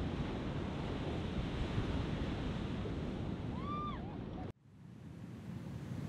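Heavy ocean surf washing and wind buffeting the microphone, with one short high call that rises and falls a little after three and a half seconds. The sound cuts off abruptly a little after four seconds and then fades back up.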